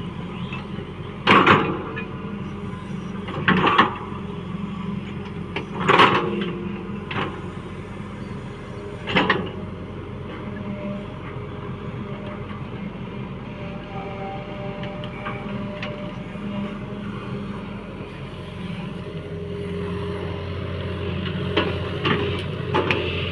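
A JCB 3DX backhoe loader's diesel engine running steadily, with a series of sharp knocks and clunks every second or two early on and again near the end.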